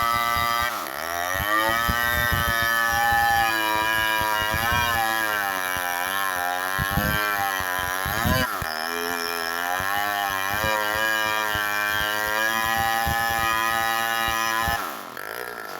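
Two-stroke chainsaw running under load while cutting oak, its engine pitch wavering up and down as the chain bites and eases. The engine drops off sharply about 15 seconds in.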